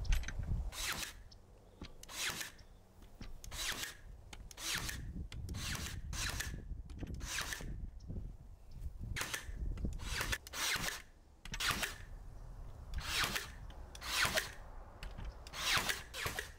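Ryobi cordless battery brad nailer firing nails into pine door boards, a dozen or more short whirring shots at irregular intervals, sometimes two in quick succession.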